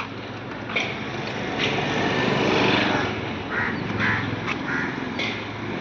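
Street noise: a motor engine running steadily, louder about halfway through, with several short harsh animal calls over it.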